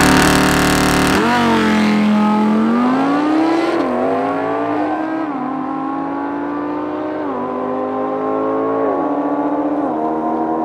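Audi R8's V10 engine launching hard from a standstill, loudest in the first second, then accelerating at full throttle. Its pitch climbs in each gear, with four quick upshifts, and the sound fades slightly as the car pulls away.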